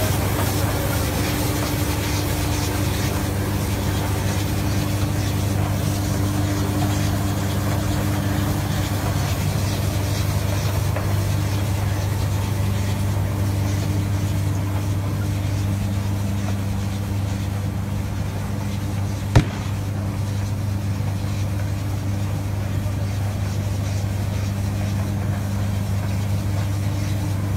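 Engine of a self-propelled brick-making machine running steadily with a low, even hum while it drives along laying bricks, with one sharp click about twenty seconds in.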